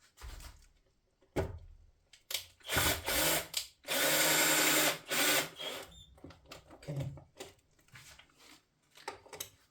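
Cordless power screwdriver driving screws in two runs at a steady pitch: a short one about three seconds in, then a longer one of about a second and a half. Clicks and knocks from handling the parts come between them.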